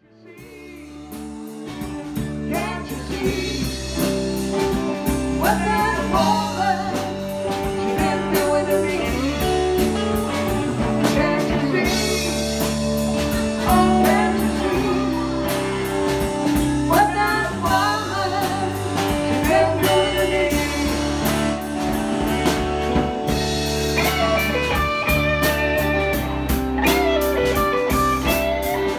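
Live rock band playing: electric guitars, bass guitar and drum kit, with a lead vocal sung over them. The music fades in over the first couple of seconds.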